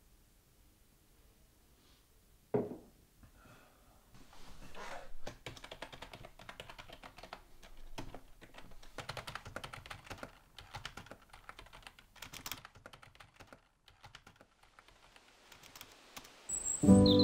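Typing on a computer keyboard: an irregular run of key clicks lasting several seconds, after a single thump about two and a half seconds in. Music comes in loudly right at the end.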